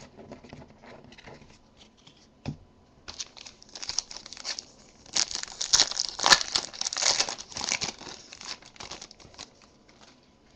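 Foil wrapper of a Topps Strata football card pack being torn open and crinkled by hand: a dense run of crackling from about three seconds in until near the end. A few light handling clicks come before it.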